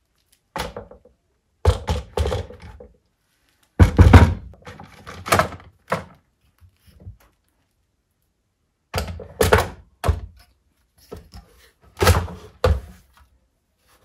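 Clunks and knocks of a steel bicycle truing stand (Park Tool TS-4.2) being handled and set into its plastic base on a wooden workbench. They come in several short clusters, the loudest about four seconds in.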